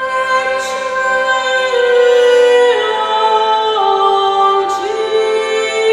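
Renaissance-style music played slowly: a newly built bowed string instrument, reconstructed from a Francia painting, sustains chords while a woman sings. The held notes move in slow steps.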